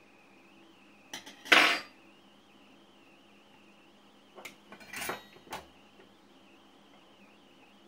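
Metal hand tools clinking and clattering on a workbench: one loud clatter about a second and a half in, then a cluster of lighter clinks and knocks around five seconds in as a soldering iron is picked up.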